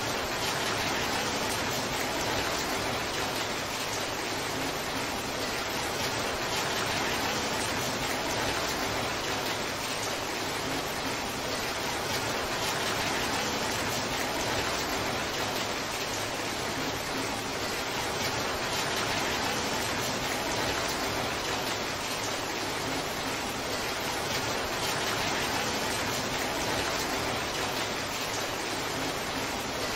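Heavy rain pouring down, a steady, even hiss that neither builds nor fades.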